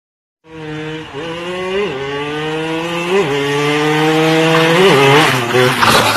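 Motorcycle engine accelerating hard. Its pitch climbs steadily and drops at three gear changes, then it breaks into a loud crash near the end.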